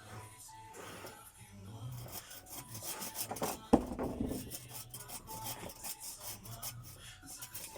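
Wooden boards scraping and knocking against each other as they are handled, with one sharp loud knock about four seconds in.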